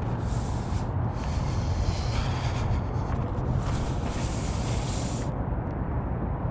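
Wind buffeting the microphone: a steady low rumble, with stretches of brighter hiss over it that stop about five seconds in.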